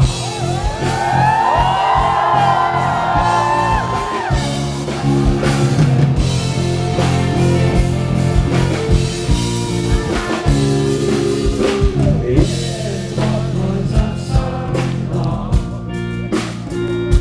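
Live rock band music in a break between sung lines: drums and guitars, with a gliding lead line over the band in the first few seconds.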